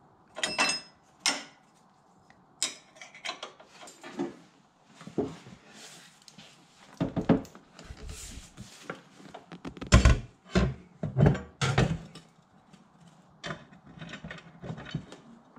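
Irregular metallic clanks and knocks of hand tools and steel parts as the bolts on a tractor seat mount are tightened down, with the loudest knocks in a cluster around the middle.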